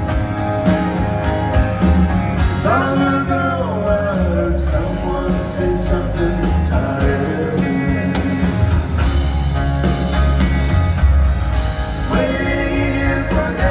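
Live rock band music with acoustic guitar, drums and bass, and a male lead singer who sings a phrase about three seconds in and another near the end.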